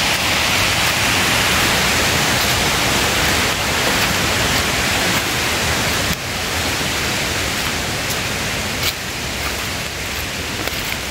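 Heavy rain falling, a steady loud hiss that drops a step in level about six seconds in, with separate drops ticking in the later part.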